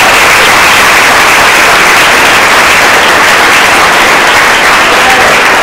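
Audience applauding, a loud, steady wash of many hands clapping.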